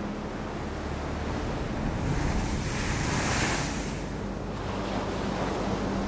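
Storm surf breaking and foaming up a pebble beach in a steady rush, with one wave surging in loudest about halfway through before easing off.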